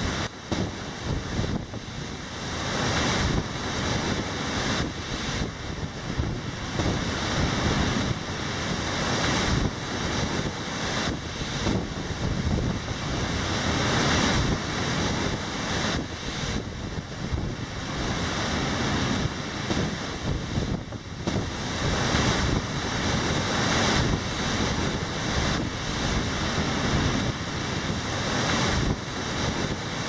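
Large storm waves breaking and crashing against a concrete breakwater at high tide: a continuous roar of surf that swells and falls in repeated surges, with wind buffeting the microphone.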